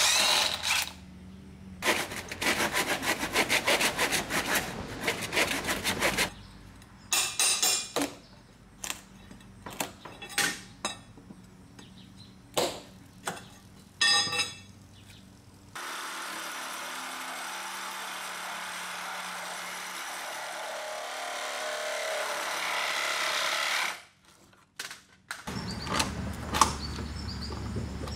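Cordless impact driver rattling in quick bursts as it drives screws into wooden wall framing, followed by scattered knocks of hand work on the wood. A steady rushing noise starts abruptly partway through and runs for about eight seconds. Near the end come a few sharp taps of a hammer on a chisel.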